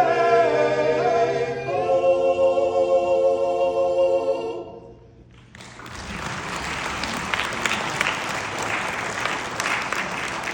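A choir holds the final chord of a carol and cuts off about four and a half seconds in. After a short gap, an audience applauds steadily.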